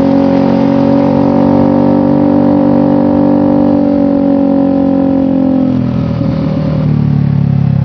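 Motorcycle engine through an aftermarket trioval long-header exhaust, held at steady raised revs, then dropping back to a lower, evenly throbbing idle about six seconds in.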